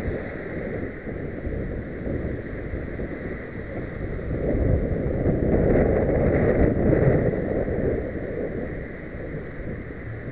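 Wind buffeting a bike-mounted camera's microphone while cycling in traffic, with road noise throughout. It swells for a few seconds midway as a Peugeot hatchback passes close alongside and cuts in ahead.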